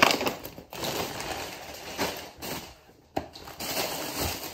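Plastic grocery packaging and shopping bags rustling and crinkling as shopping is unpacked and handled, on and off with brief pauses.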